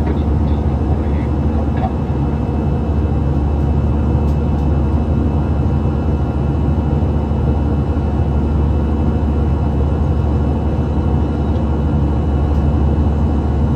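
Steady jet engine and airflow noise inside the cabin of an Airbus A320-216 in flight, with a faint steady whine above the low rumble.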